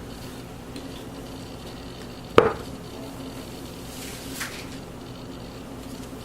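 A sharp knock of a hard object on a work surface about two seconds in, and a fainter click two seconds later, over a steady low hum.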